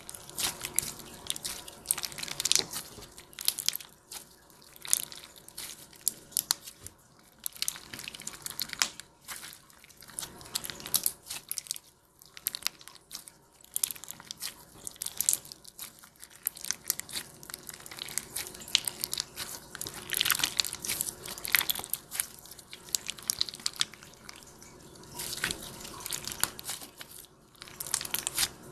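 Clear slime packed with pink and blue beads being squeezed and pressed in the hands: dense crackling and popping in repeated squeezes, with wet squishing between them.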